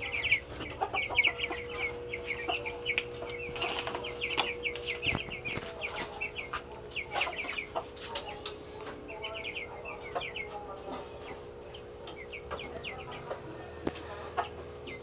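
Caged chickens calling: runs of short, high, rapid chirping notes in quick series, over a steady low hum and scattered clicks.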